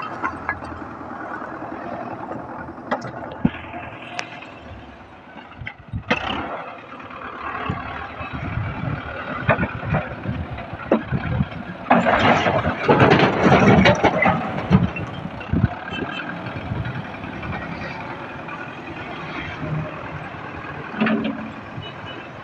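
Russian-made tractor engine running under a front-loader carrying broken bricks, with scattered knocks. About twelve seconds in, the bucket tips and the bricks clatter and crash into the trolley for a couple of seconds, the loudest part; the engine runs on as the tractor backs away.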